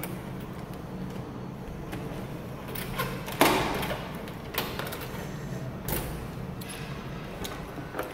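A key turned in a door lock, with keys rattling on the ring: several sharp clicks and one louder metallic clunk about three and a half seconds in.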